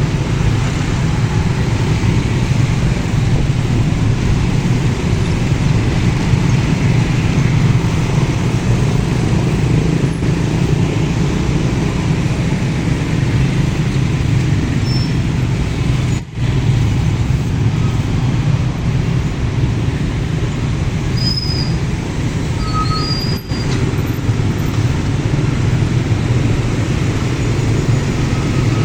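Steady low rumble of road traffic, with vehicle engines and tyres going by continuously. The sound cuts out briefly twice, about 16 and 23 seconds in.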